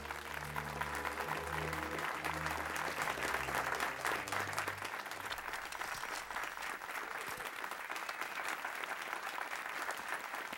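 An audience applauding steadily, with low sustained music notes underneath that stop about halfway through.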